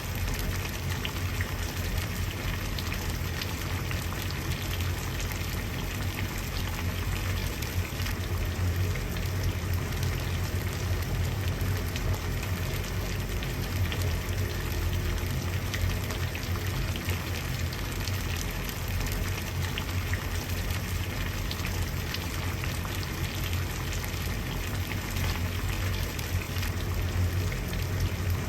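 Water at a rolling boil, a steady bubbling with many small pops over a low rumble.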